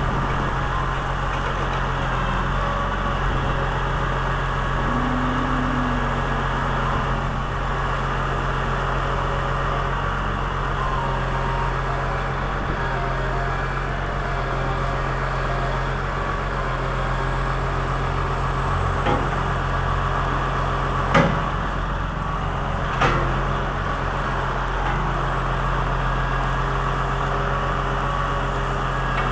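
Heavy equipment diesel engine running steadily at an even speed, with three sharp knocks late on, the middle one the loudest.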